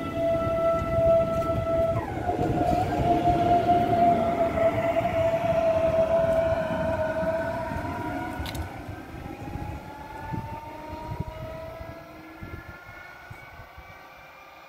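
DB Class 423 S-Bahn electric multiple unit pulling away. Its traction drive whines in several tones: a held tone sags slightly, then from about halfway the tones climb steadily in pitch as it accelerates, fading as the train moves off.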